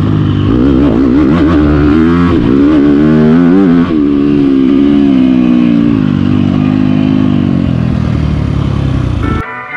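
Yamaha YZ250F's four-stroke single-cylinder engine heard onboard, revving up and down with the throttle, then holding a steadier, slowly falling note. It cuts off suddenly near the end as music begins.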